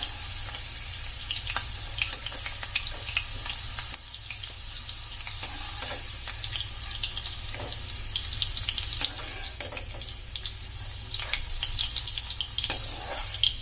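Hot mustard oil sizzling in an aluminium kadhai as fried potato cubes are lifted out: a steady hiss with scattered clicks and scrapes of a perforated slotted spoon against the pan.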